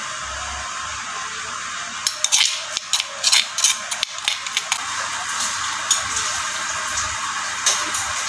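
Metal spoon scraping and clicking against a stone mortar as ground white pepper is scooped out, a quick run of scrapes starting about two seconds in and easing off near the middle, with a few more clicks later. A steady hiss runs underneath.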